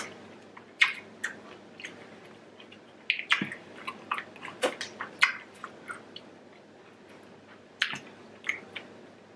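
Close-up wet chewing and lip smacks of a person eating thick, chewy prawn meat. The smacks are scattered and come thickest about three to five seconds in.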